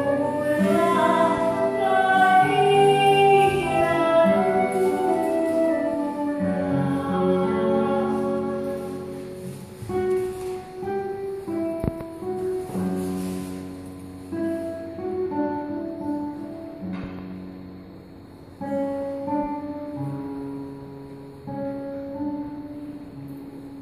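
Live Sephardic lullaby sung by a female voice with flute and classical guitar. After about ten seconds the music drops to quieter, sparser notes, and there is one sharp knock about twelve seconds in.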